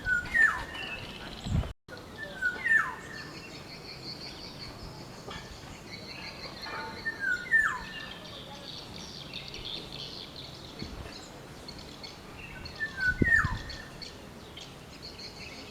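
Black-naped oriole calling: four short phrases spaced a few seconds apart, each a brief note followed by a downward-sliding whistle. A steady high-pitched drone runs in the background.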